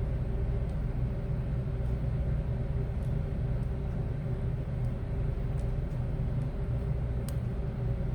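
Steady low machine hum, like a fan or motor running, with a few faint small clicks about three seconds in and again near the end.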